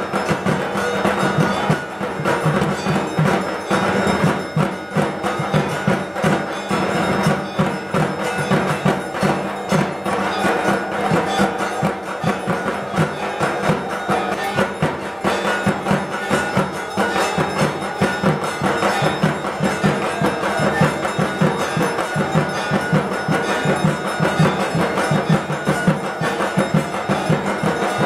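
Fast, continuous ritual percussion, drums with clanging bells, played for the aarti of a puja.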